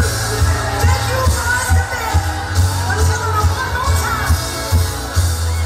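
Recorded dance-pop music played loud through a PA, with a heavy pulsing bass beat and a singing voice over it.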